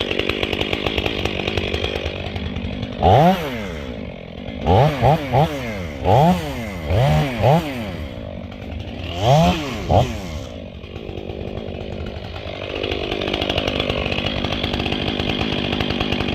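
Stihl 500i two-stroke, fuel-injected chainsaw running through a muffler with the baffle removed and the port opened up. It is blipped up to high revs and dropped back about eight times in quick succession, with steadier running before and after.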